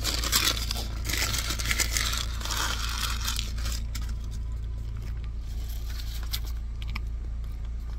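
Close rustling and crinkling handling noise against a phone's microphone, dense for the first three and a half seconds and then thinning to scattered clicks, over a steady low hum.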